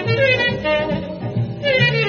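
Jazz orchestra instrumental in a swing style, with saxophones and brass playing a melody that bends and slides in pitch over a bass line.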